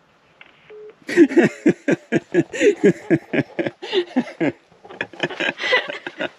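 A short single low beep under a second in, then a person's voice in quick, rhythmic bursts with no clear words, heard during a phone call.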